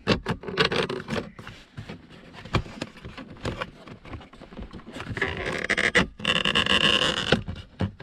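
Aftermarket plastic cup holder unit for a BMW E39 being forced into its tight dash opening: plastic clicks, knocks and scraping, with a longer squealing scrape in the second half as it slides in. The tight fit comes from the slightly too-wide aftermarket part.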